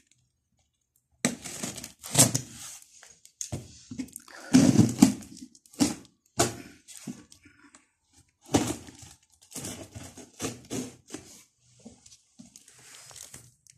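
Packing tape on a cardboard carton being slit with a knife blade and torn away: irregular scraping, tearing and crackling with occasional dull knocks on the box.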